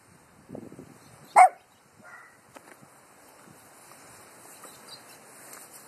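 A small dog barking: one loud, sharp bark about a second and a half in, with a fainter low sound shortly before it.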